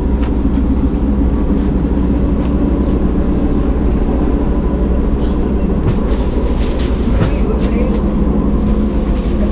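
Steady low rumble of a passenger train's running noise heard inside a sleeper carriage. A few short knocks and rustles come between about six and seven and a half seconds in, as bedding is handled.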